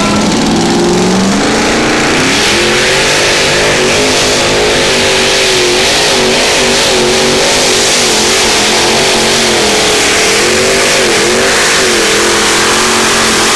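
Supercharged engine of a modified pulling tractor at full throttle, dragging the sled through a pull. Its pitch climbs over the first couple of seconds, then holds high with small wavers to the end.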